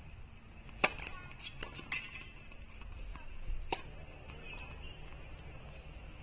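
Tennis ball hit by rackets and bouncing on a hard court: a sharp pop about a second in, a quick run of lighter pops just after, and another strong pop near four seconds.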